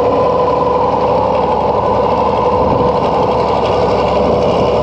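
Alvis Stalwart Mk1's Rolls-Royce B81 straight-eight petrol engine running steadily under load as the amphibious truck drives itself through the water on its water jets, with a steady whine held on top.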